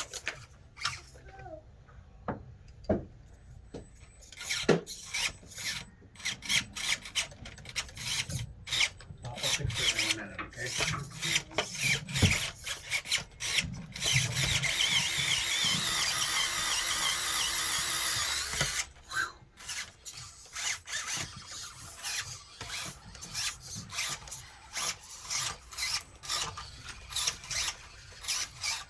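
Axial SCX24 mini RC crawler working over rocks: a long run of sharp clicks and scrapes from its driveline and tyres, and a steady whirring grind from about 14 to 18 seconds in as the small motor strains and the wheels spin. The clicking comes with a broken dog bone that the driver calls completely trashed.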